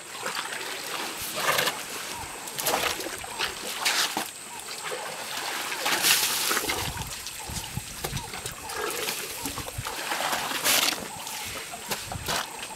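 African elephants drinking at a concrete trough, water splashing and sloshing as their trunks draw up and throw water, in repeated short splashes, the loudest about six seconds in.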